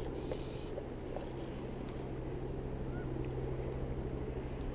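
River water flowing steadily, with wind rumbling on the microphone.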